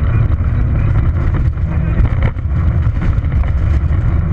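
Inside a Peugeot 206 XS rally car at speed on a gravel stage: the engine running hard under the rumble of the tyres on loose gravel, with small stones ticking against the car's underside. The sound dips briefly about two seconds in.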